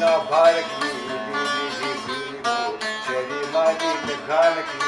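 A man singing a folk song to his own accompaniment on a long-necked saz: quick plucked notes under a voice that bends and slides through each phrase.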